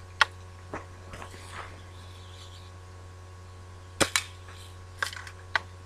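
Daisy Red Ryder lever-action BB gun shooting at tin cans: a handful of sharp snaps and clicks, with two close together about four seconds in.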